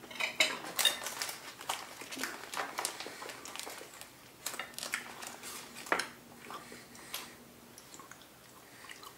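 Irregular crinkling and clicking of plastic cheese packaging, with knocks of a knife against a plate, as vegan cheese is cut and broken off. The sounds are busiest in the first six seconds and thin out after.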